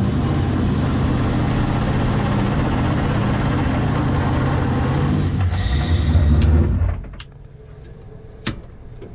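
A 900-horsepower Nissan 240SX drift car's engine running just after a cold start, growing louder about five and a half seconds in, then stopping abruptly about seven seconds in. A sharp click follows near the end.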